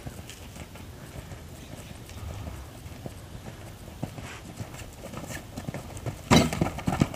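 Hoofbeats of a horse cantering on arena sand, soft and uneven at first, with a sudden loud thump about six seconds in as it goes over a jump, then heavier, more regular strikes.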